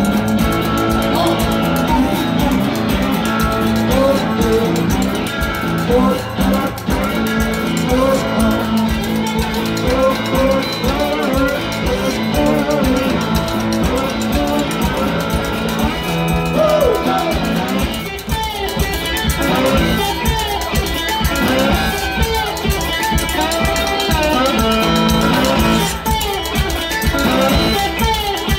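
Live band music with guitar, and a metal washboard worn at the chest scraped and tapped in rhythm.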